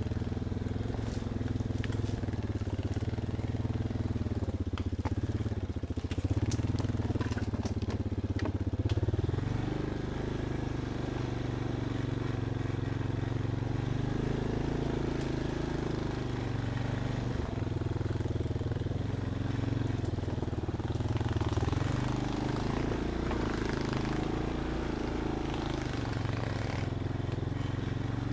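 Off-road vehicle engine running at low, shifting revs as it works along a trail, its pitch changing every few seconds with load, with scattered clicks and crunches over it in the first third.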